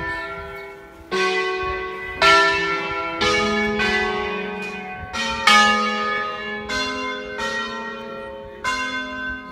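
Five-bell church bell concerto in E3 (De Poli bells cast in 1949), rung by hand from ropes: about nine strokes on bells of differing pitch, roughly one a second, each ringing on into the next.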